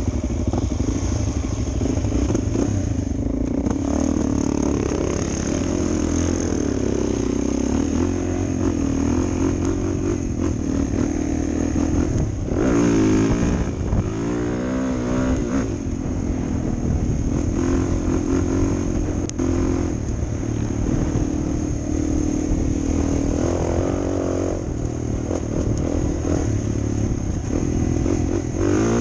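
Suzuki DR 400 dual-sport motorcycle's single-cylinder four-stroke engine running under way, its pitch rising and falling with the throttle and gear changes, with a burst of hard revving about halfway through.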